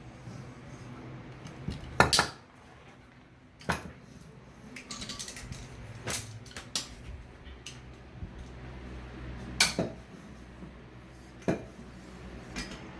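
Metal hand tools clinking against metal parts, about six sharp clinks spread out, with a short scraping stretch about five seconds in, as threads in an exhaust manifold are cleaned up.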